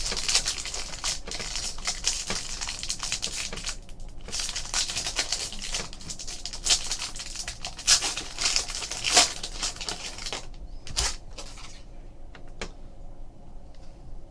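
Foil wrapper of a 2015 Bowman Chrome trading card pack crinkling and tearing as it is opened: a rapid, dense crackle that eases off about ten seconds in, leaving a few soft clicks.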